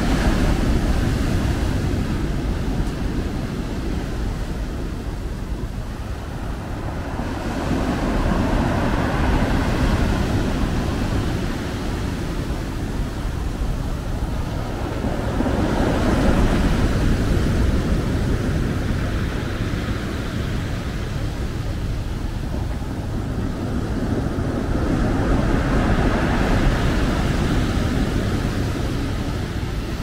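Sea waves breaking and washing up a shingle beach, the surf noise swelling in four surges about eight seconds apart over a steady low rumble.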